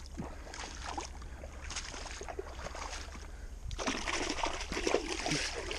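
Boots wading through shallow swamp water, a splash and slosh with each step, the splashing getting louder and quicker about two-thirds of the way through.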